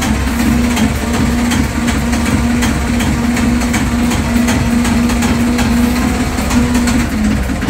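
Lifeboat's inboard diesel engine idling steadily with the hatch open, a constant hum with a fast, even diesel clatter, shortly after being started.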